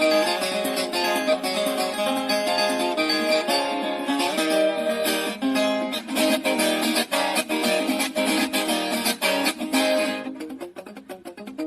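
Background music of plucked guitar strummed in a quick rhythm, thinning out and getting quieter about ten seconds in.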